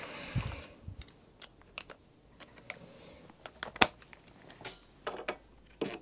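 Sporadic light clicks and knocks of metal tools being handled, with one sharper click about two thirds of the way through: a short socket extension being swapped onto a cordless impact driver.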